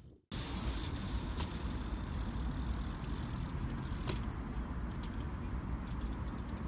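Steady low rumbling outdoor background noise, with a few light clicks, and a BMX bike's freewheel hub ticking rapidly near the end as the bike rolls.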